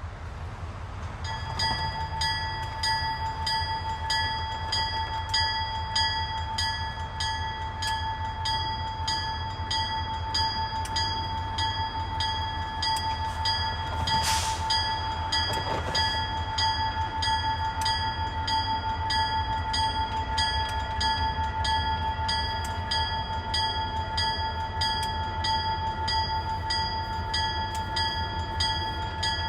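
Railway crossing bell starts ringing about a second in and keeps ringing steadily in rapid repeated strikes, over the low rumble of a freight train. A brief burst of noise stands out about halfway through.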